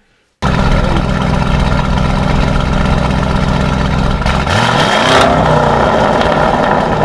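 Lamborghini Urus twin-turbo V8 with aftermarket downpipes, in Corsa mode, cutting in suddenly at a loud idle. About four and a half seconds in it revs once, the pitch rising, then it settles back to idle. The engine is not fully warmed up, so the exhaust is not popping.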